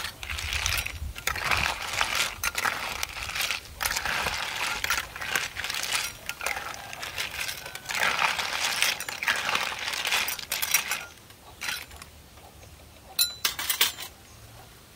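Snail shells clattering and clinking against each other and a steel frying pan as a metal spoon stirs and scoops them, in quick irregular bursts that die away about eleven seconds in. A couple of sharp clicks come near the end.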